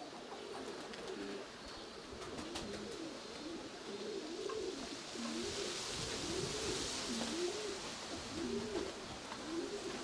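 Domestic pigeons cooing, one rising-and-falling coo after another, about one a second.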